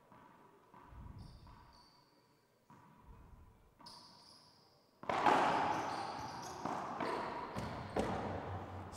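Racquetball court sounds: soft ball bounces and sneaker squeaks on the hardwood floor, then from about five seconds in a much louder, echoing stretch with several sharp smacks of the ball.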